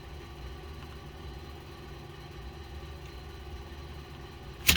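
A steady low hum, then a sharp knock and clatter near the end, as something hard is knocked while the controller is being taken apart.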